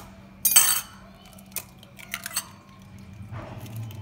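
A raw egg cracked open over a ceramic bowl: one loud sharp crack about half a second in, then a few light clicks of shell and a fork against the bowl.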